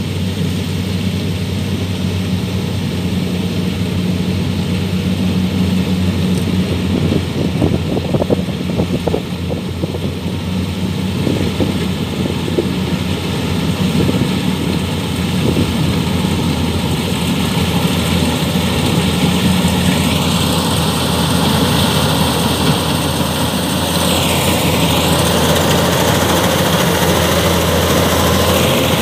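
Kubota DC-105X rice combine harvester running under load as it cuts, a steady diesel drone growing slightly louder. A high whine steps up in pitch about two-thirds of the way in and dips briefly near the end.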